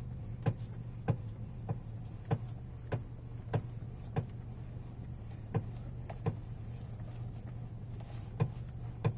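Knocking from the steering of a Geely Atlas Pro as the wheel is turned to the right: sharp knocks about every half second for the first four seconds, then a few scattered ones, over a steady low hum. The knock comes only when turning right, not left, so it is the sign of a fault in the steering.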